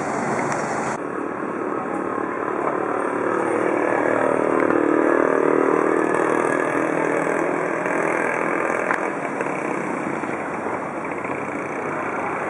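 Street traffic noise with vehicle engines running close by. One engine grows louder in the middle and then eases off.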